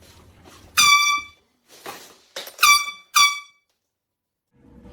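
Air horn sounded in three blasts: a longer first blast about a second in, then two short ones in quick succession, each dropping in pitch as it cuts off.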